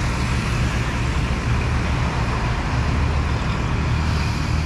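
Mercedes army truck's diesel engine running with a steady low drone, mixed with road traffic, a car going by near the end.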